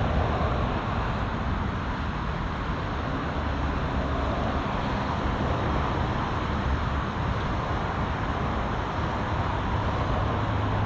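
Steady road traffic noise, the continuous hiss and hum of cars passing on a highway.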